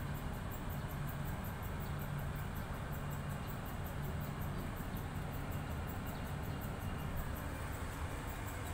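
Steady low mechanical hum over constant background noise, with no distinct events.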